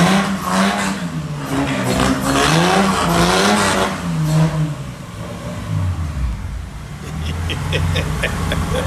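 Swapped Toyota 1JZ straight-six engine revved in several rising and falling blips, then dropping back to a lower, steady idle about five seconds in. A few short clicks sound near the end.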